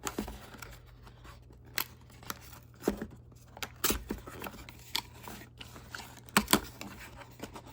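Cardboard box of a small Bluetooth speaker being opened by hand: a run of irregular sharp clicks, snaps and scrapes of cardboard and packaging, loudest in a pair of snaps about six and a half seconds in.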